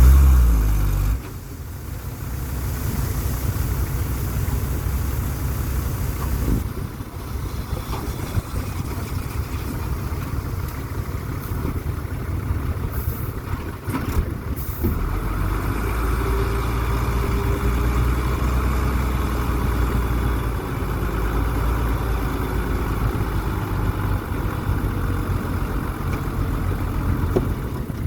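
Heavy diesel engine of an earthmoving machine running steadily under changing load, its low engine sound dropping about a second in and growing fuller from about halfway through.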